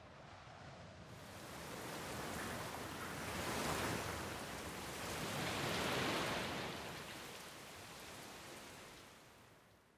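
A rushing noise that swells and ebbs, loudest about four and six seconds in, then fades out near the end.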